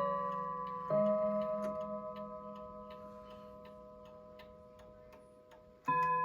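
Antique Ansonia mantel clock chiming on its rods: a struck note at the start and a slightly different note about a second in, which rings and slowly dies away. A third strike comes near the end, with the clock ticking throughout. The owner suspects the chime is not quite right.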